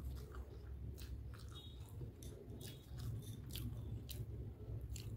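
Close-up mouth sounds of a person chewing a mouthful of chicken hakka noodles, with frequent small wet clicks and smacks. A low steady hum runs underneath.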